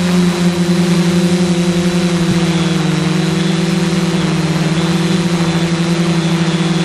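Motors and propellers of a ZionEX460 multirotor drone buzzing steadily in flight, the pitch wavering slightly as the motors adjust speed.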